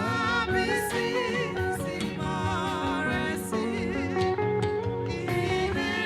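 Band music led by a guitar playing a wavering melody over a steady bass line.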